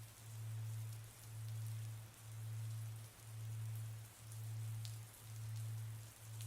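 Soft rain ambience of falling raindrops, over a low hum that pulses on and off about once a second, evenly.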